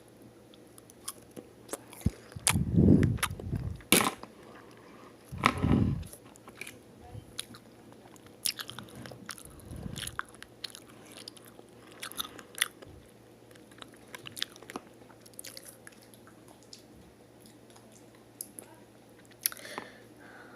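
Fresh strawberries being bitten and chewed close to the microphone, with many small wet mouth clicks. There are two louder, juicier bites, about two and a half and five and a half seconds in.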